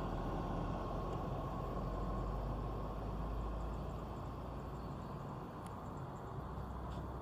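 Low engine rumble of a large bus moving off, slowly fading over the few seconds.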